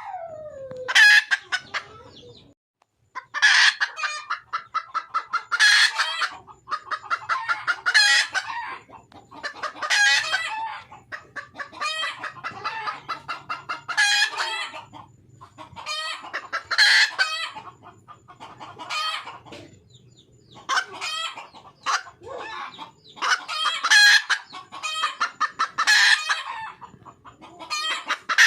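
Red junglefowl hen calling for a mate: a series of rapid cackling calls, repeated about every two seconds.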